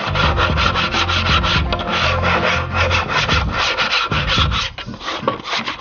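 Sandpaper rubbed by hand back and forth along a cut plywood edge in quick, even strokes, about five a second, taking the burrs off the cut.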